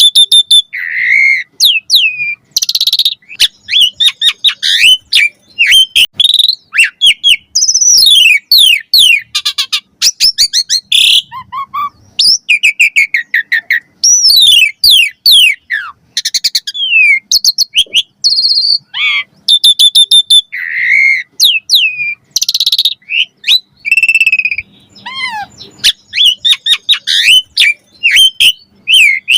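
Asian pied starling (jalak suren) singing vigorously: a fast, unbroken run of varied whistles, rising and falling glides and sharp clicking notes, its song packed with varied borrowed phrases.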